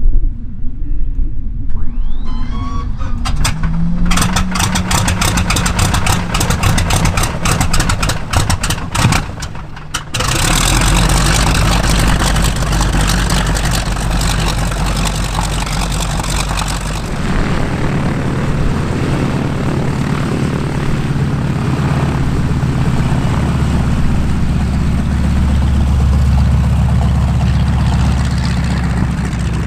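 North American T-6 Texan (Harvard) Pratt & Whitney R-1340 Wasp radial engine starting up. A rising starter whine is followed by several seconds of cranking with a run of irregular pops and coughs. About ten seconds in the engine catches and settles into a steady, loud run with the propeller turning.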